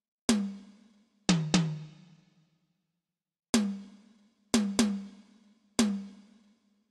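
Tom-tom drum struck seven times in a slow, uneven pattern, each hit ringing at a steady pitch and fading out within about a second; one hit about one and a half seconds in rings lower, like a second, deeper tom.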